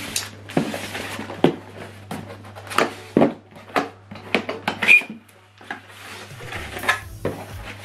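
Unboxing handling noises: a polystyrene foam packing block knocked and rubbed as it is set down on a table, then a small cardboard box tapped and its lid flap pulled open, in a series of irregular knocks, scrapes and rustles.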